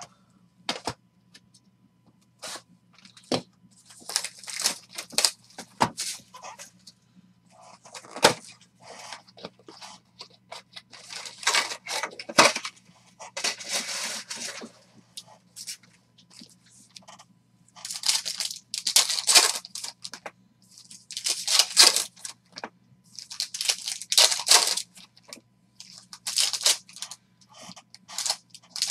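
A Panini Prizm retail basketball card box being opened and its foil wrapper packs handled and torn open: repeated bursts of crinkling, tearing wrapper, with a few sharp clicks and taps in between.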